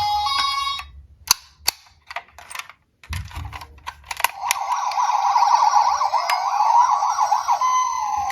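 A siren warbling rapidly up and down, starting a little over four seconds in. Before it come a few sharp clicks.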